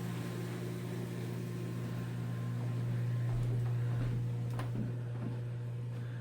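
Steady low electric hum of a running machine, swelling a little in the middle, with a couple of faint clicks.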